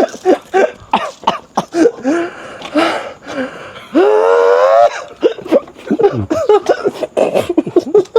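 A person's voice making short wordless vocal sounds and coughs, with one held, rising vocal tone about four seconds in that lasts about a second.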